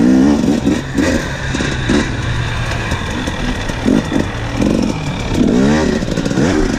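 2017 KTM 250 EXC two-stroke single-cylinder enduro engine being ridden on a dirt trail, its revs rising and falling repeatedly with throttle and gear changes. The biggest rev swell comes about two-thirds of the way through, over knocks and rattle from the bike on rough ground.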